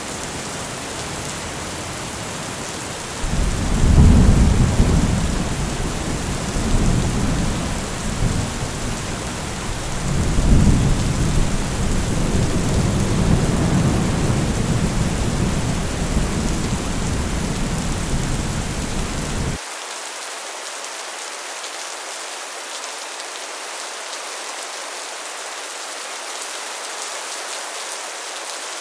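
Heavy rain falling steadily on a metal roof. Thunder rumbles in about three seconds in, swells twice, and cuts off suddenly about two-thirds of the way through, leaving the rain alone.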